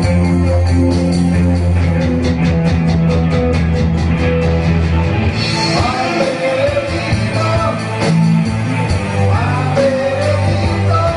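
A small rock band playing live: electric bass, guitar, keyboard and electronic drum kit. A fast, even run of drum hits about two seconds in leads into a cymbal crash, and a voice starts singing about halfway through.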